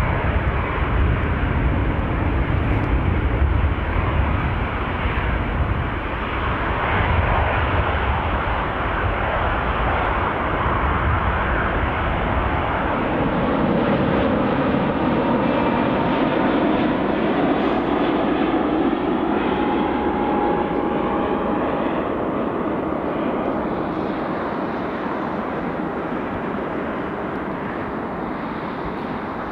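Jet airliner engines: a deep, loud rumble for the first dozen seconds, then a lighter, steady engine sound with a faint whine as a twin-engine Airbus A330 flies on final approach with gear down. It slowly fades toward the end.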